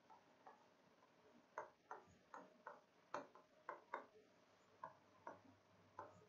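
A dozen or so faint, irregular taps and clicks of a pen tip on the glass of an interactive display as words are written on it.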